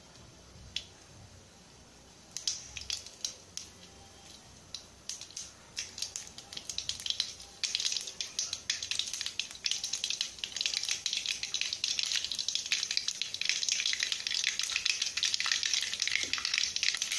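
Mustard seeds and urad dal popping in hot oil: a few scattered pops at first, getting quicker and then turning into a dense, steady crackle from about halfway through. The seeds are bursting as they should, the sign that the tempering is ready.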